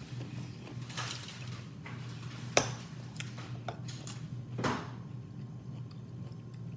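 Mukbang eating sounds with dishes and cutlery: a sharp click about two and a half seconds in, and short noisy bursts near one second and near four and a half seconds, over a steady low hum.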